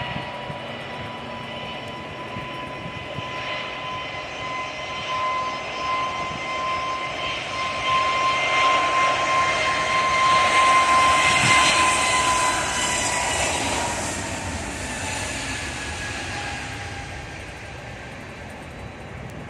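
AirAsia twin-jet airliner's turbofan engines running as it rolls along the runway past the listener: a steady high whine over a rushing noise that swells to its loudest about eleven seconds in, then fades as the whine drops slightly in pitch.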